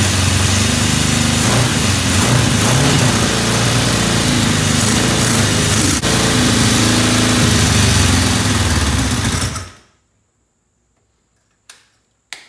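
1981 Honda CB750 DOHC's inline-four engine running with a freshly rebuilt top end, the throttle blipped so the revs rise and fall several times. The engine sound stops abruptly about ten seconds in.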